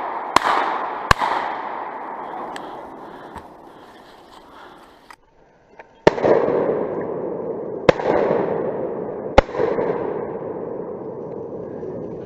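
Shotgun shots: two in quick succession near the start, then three more about a second and a half apart from the middle on, each echoing and rumbling away through the woods.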